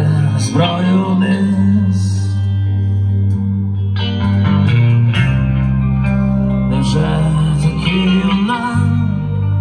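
Live rock band playing: electric guitar lines over sustained bass notes and drums.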